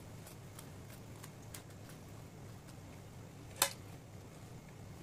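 Quiet room hum with a few faint light clicks and one sharper click about three and a half seconds in.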